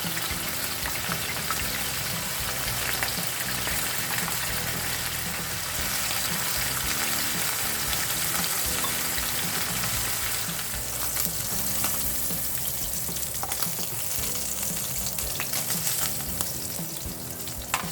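Yogurt-marinated chicken breast frying in a little oil in a pan: a steady sizzle with scattered small pops.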